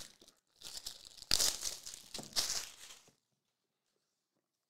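Plastic shrink-wrap crinkling and tearing as it is pulled off a cardboard trading-card box, in a few rustling bursts with one sharp crackle about a second in. The sound stops after about three seconds.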